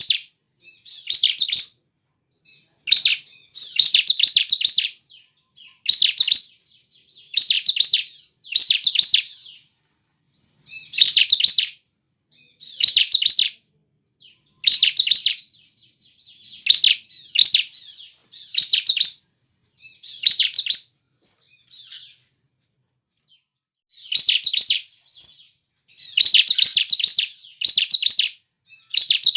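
Bar-winged prinia (ciblek) song: loud bursts of rapid, high chirping notes, each phrase under a second long, repeated every second or two with short pauses between. A lull of a few seconds falls about two-thirds of the way through.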